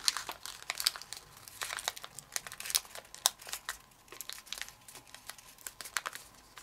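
Kami origami paper rustling and crinkling under the fingers as a flap is worked into a pocket. Many small, irregular crisp ticks come as the creases are pressed.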